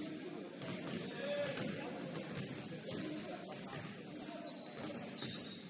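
Basketball game in a gym: sneakers squeaking on the court at scattered moments, over the low din of players moving.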